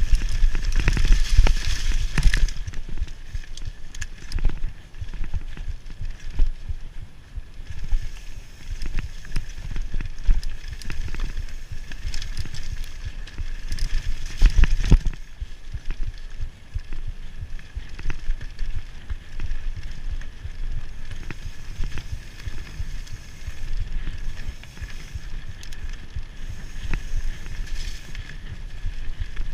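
A mountain bike ridden fast down a dirt trail: a steady rumble of tyres on the ground with the bike rattling and knocking over bumps. The loudest jolts come in the first two seconds and about halfway through.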